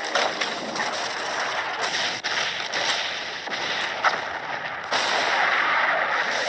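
Film explosion sound effects: a dense, steady blast-and-fire noise with several sharp bangs spread through it, as a small aircraft blows up in a fireball.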